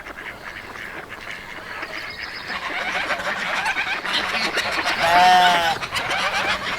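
Farmyard birds calling: a growing chatter of many short calls, then a loud, drawn-out pitched call about five seconds in.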